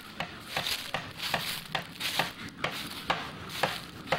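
Footsteps crunching through dry fallen leaves and dead grass at a steady walking pace, about two steps a second, with rustling between the steps.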